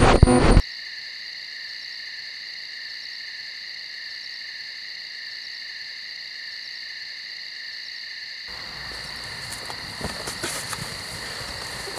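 A steady chorus of crickets chirping at night. A short loud burst of noise comes at the very start, and faint rustling and clicks come back in the last few seconds.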